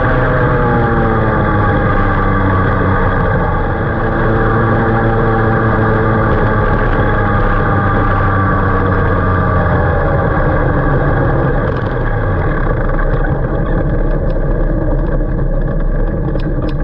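Two-stroke dirt kart engine heard from on board, its revs falling over the first couple of seconds as the kart slows. It then runs at low, steady revs as the kart rolls slowly, with a few light clicks near the end.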